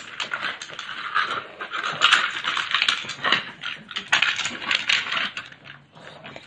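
A pug sniffing and snuffling as it noses at dog puzzle toys, with rapid irregular clicks and clatter of the wooden and plastic puzzle pieces.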